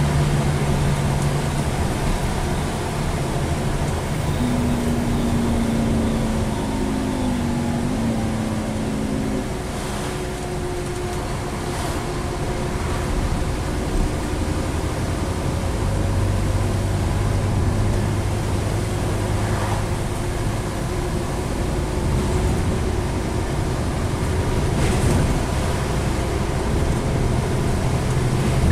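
Scania N230UD double-decker bus heard from inside the passenger saloon while driving: a five-cylinder diesel engine with a ZF Ecomat 5-speed automatic gearbox. About five seconds in, a whine climbs in steps for a few seconds and then stops. From about halfway a deeper engine note comes in, with a few light knocks and rattles from the body.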